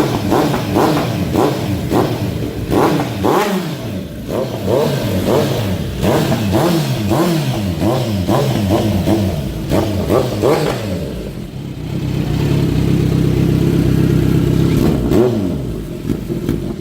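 Kawasaki Z900's inline-four engine, loud through an aftermarket sport exhaust tip, revved in quick repeated blips that rise and fall. About twelve seconds in it is held steady at raised revs for about three seconds, then drops back.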